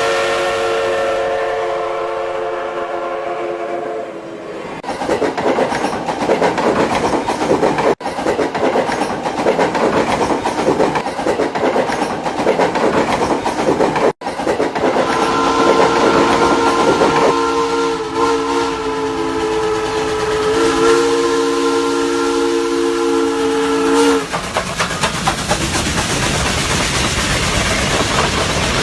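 A train horn sounds a held chord of several notes for about four seconds and again for about nine seconds later on. Between the two and after them, a train is running past with rumbling and clattering wheel noise.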